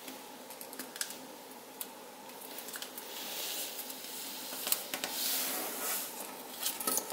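Sheet of paper being folded and creased by hand: soft rustling and crackling with scattered small clicks, two longer swishing rustles about three and a half and five seconds in.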